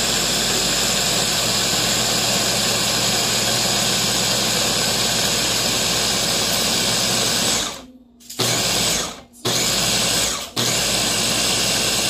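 Ninja chopper's motor running steadily, its blades grinding dry old-fashioned oats into a powder. The motor is let off briefly three times in quick succession in the last third, starting up again each time.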